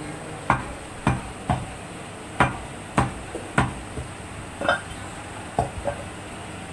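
Butcher's cleaver chopping water buffalo meat into cubes on a wooden log block: about ten sharp chops, roughly one every half second, ending about six seconds in.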